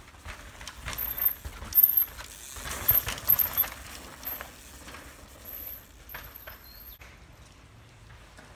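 Carbon Specialized Demo 8 downhill mountain bike passing close on a rooty dirt trail: tyres crunching over dirt and roots with the chain and frame clattering, loudest from about one to four seconds in, then a quieter rattle as it moves away.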